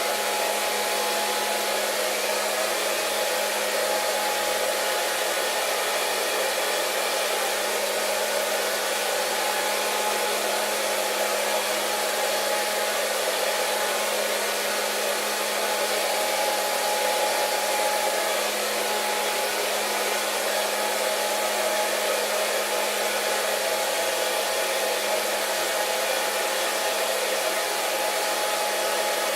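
Hair dryer running steadily: an even rush of blown air with a constant motor hum underneath.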